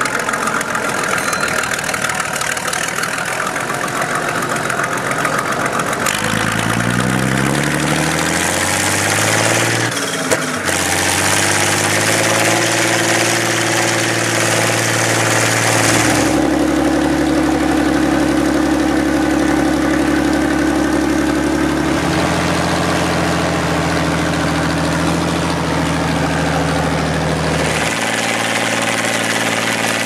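Someca 1300 DT tractor's six-cylinder diesel engine running as it drives, its note climbing twice as it revs up in the first half, with a brief knock about ten seconds in. It then holds steady, shifting abruptly to a new steady note a few times.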